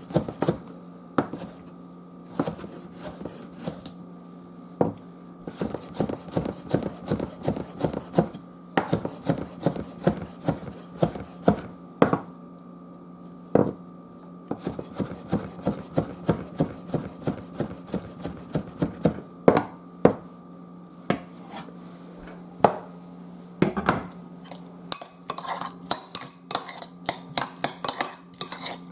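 Knife chopping a tomato into small pieces: runs of sharp knocks of the blade on the cutting surface, several a second, with short pauses between runs, over a steady low hum.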